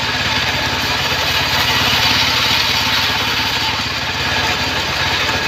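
Homemade bandsaw mill driven by a stationary engine, running steadily with a fast, even engine beat while the blade saws lengthwise through acacia wood, adding a broad hiss.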